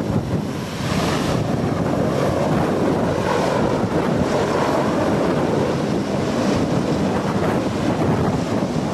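Loud, steady rushing noise of a large helicopter's rotors and engines, heavily mixed with wind buffeting the microphone.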